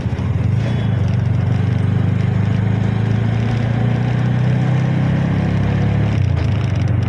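Auto rickshaw's engine running under way, heard from on board: a steady low drone that builds slightly, then changes note about six seconds in.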